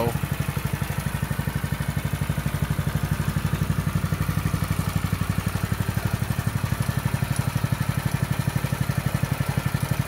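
The TrailMaster Storm 200 mini bike's 196cc single-cylinder four-stroke engine idling with a steady, even beat. It has warmed up after a cold start and runs smoothly, the idle having picked up.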